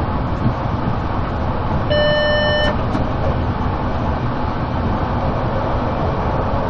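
Stadler GTW 2/6 railcar running at speed, heard from the cab: a steady rumble of wheels on the rails. About two seconds in, a short high beep sounds for under a second.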